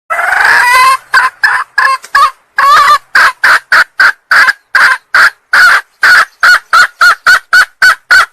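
Female junglefowl calling: one long call of about a second, then a steady run of short, clipped calls at about three a second.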